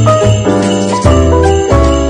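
Background music with jingle bells shaking over a melody that steps from note to note and a bass line on a regular beat.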